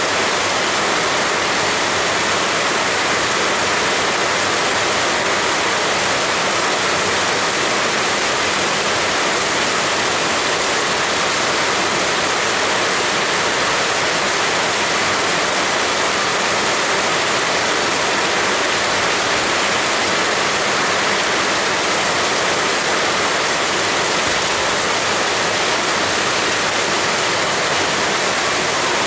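Heavy rain pouring steadily, a dense, even hiss that does not change.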